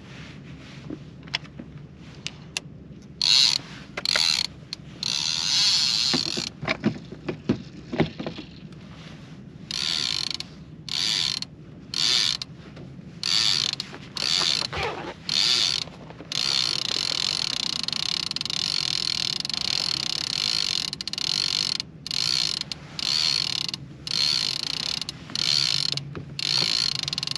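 Fishing reel clicker ratcheting as line pays out from trolling rods, in repeated stop-start bursts, most under a second long, with one run of several seconds past the middle.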